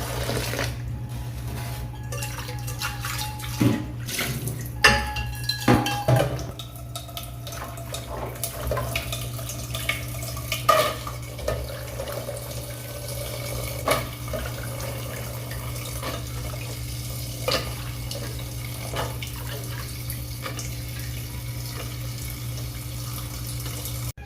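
Water running from a tap into a sink, with pots and dishes clinking and knocking against each other, loudest during several seconds of clatter in the first half. The running water stops abruptly at the end.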